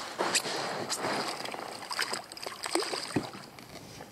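Water splashing and dripping as a small striped bass is lifted out of the water into a kayak, with a few sharp clicks and knocks.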